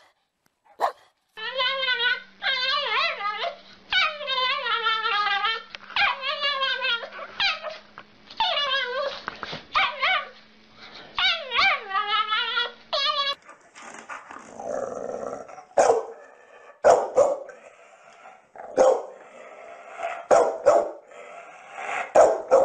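A dog gives a couple of short barks. Then a small dog howls in long, warbling calls that waver up and down in pitch for about ten seconds. Near the middle the sound changes to a pit bull-type dog barking in short, repeated barks.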